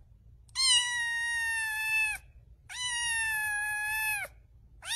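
Kitten meowing: two long, drawn-out meows of about a second and a half each at a steady high pitch. A third begins right at the end.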